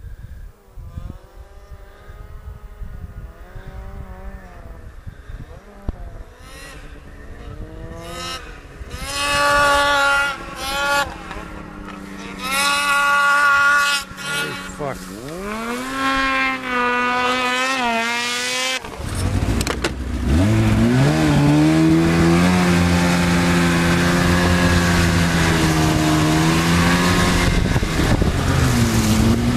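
Snowmobile engines: faint at first, then from about a third of the way in growing louder, rising and falling in pitch as the sleds rev and move. About two-thirds in, a snowmobile right at the microphone comes in loud, its pitch sweeping up, and keeps running steadily with small changes in pitch.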